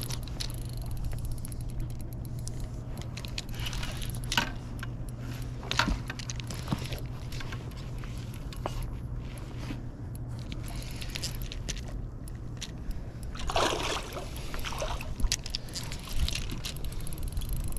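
Water splashing and sloshing against the side of the boat as a king salmon is landed in a net, with scattered knocks and rattles of gear being handled, over a steady low hum.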